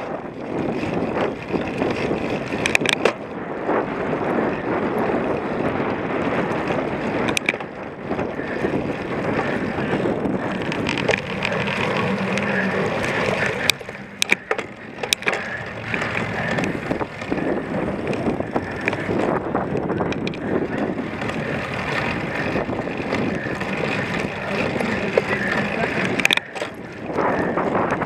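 Cyclocross bike being ridden over rough ground: a steady rumble of tyres and rattle of frame and drivetrain, broken by scattered sharp knocks.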